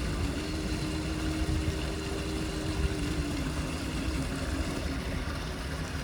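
Steady low rumble with a motor hum over it; about three seconds in the hum drops slightly in pitch and fades.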